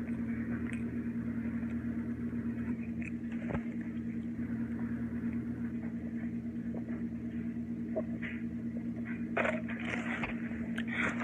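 A steady low mechanical hum with a constant pitch, with a few faint clicks and short rustles of someone eating, a small cluster of them near the end.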